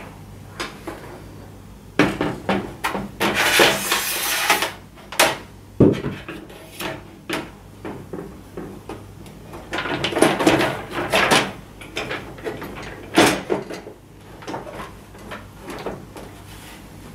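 The plastic back cover of a Sony Bravia LCD TV being fitted over its metal chassis: two spells of scraping and rattling plastic as it is shuffled into place, with sharp knocks and clicks between them.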